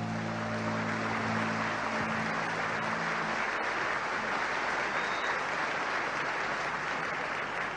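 Concert audience applauding while the band's held closing chord rings on and dies away about three and a half seconds in.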